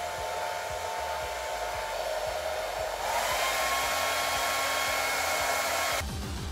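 Handheld hair dryer blowing steadily, drying a coat of liquid latex. About halfway through, its whine glides up in pitch and the blowing gets louder. It cuts off suddenly near the end as music comes in.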